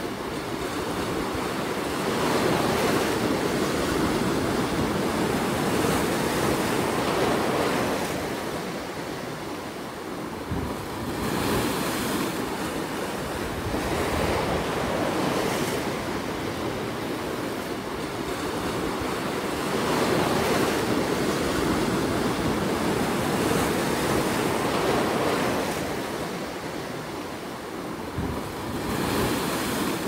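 Sea waves breaking and washing over rocks on a rocky shore. The surf is continuous and swells and eases every few seconds.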